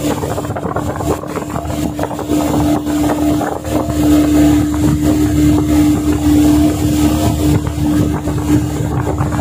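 Yamaha 40 hp outboard motor running steadily under way, driving a speedboat, with a steady engine hum over a low rumble. It is being test-run with a freshly cleaned carburetor and diaphragm.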